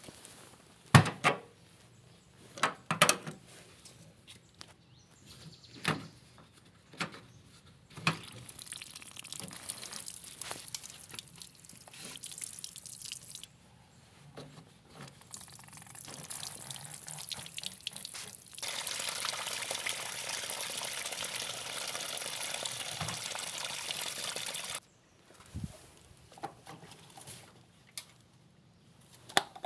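Several knocks and clicks, then water running in uneven spells, growing into a steady flow for about six seconds that stops suddenly.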